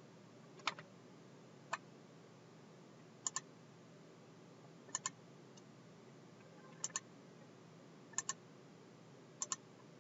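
Computer mouse clicking over a faint steady hiss: two single clicks near the start, then close pairs of clicks every one and a half to two seconds, as pipes are selected on screen.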